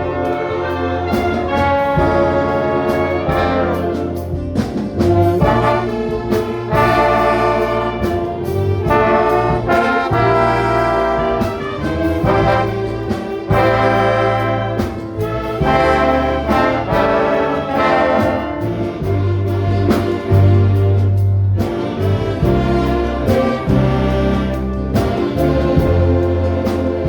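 A brass-led orchestra playing, with trumpets and trombones carrying sustained chords over a steady bass line.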